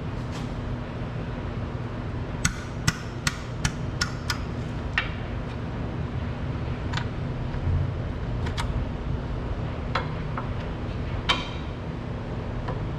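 Sharp metallic clicks of a ratchet and 13 mm socket on an oil drain plug, as the plug is worked loose. A quick run of about six clicks comes a couple of seconds in, then a few single clicks, over a steady low hum.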